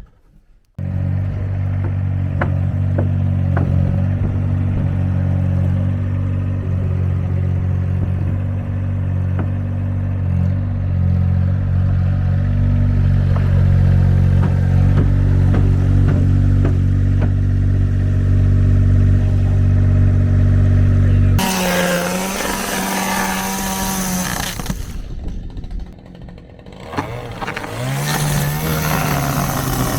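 An engine running steadily at a low speed with light clattering, then about 21 seconds in a chainsaw revs up to full speed cutting into the old wooden boat hull, dips briefly, and revs up again near the end.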